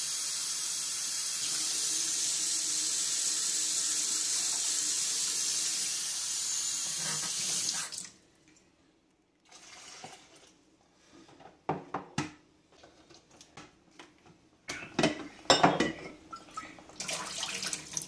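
Kitchen faucet running steadily into a ceramic mug for about eight seconds, then shut off. Scattered clinks and knocks follow as the water is handled at a drip coffee maker, and near the end louder splashing and clatter at a stainless steel sink as old coffee is poured out.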